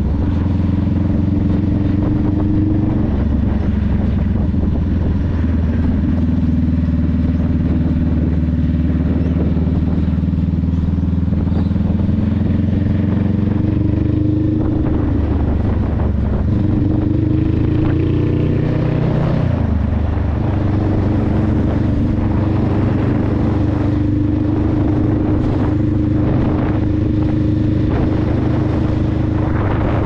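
2021 Honda Rebel 500's parallel-twin engine running through a TBR Comp S aftermarket exhaust while riding. The engine note holds steady, then steps up and down in pitch a few times; about nineteen seconds in it revs up and then drops away, as on a gear change.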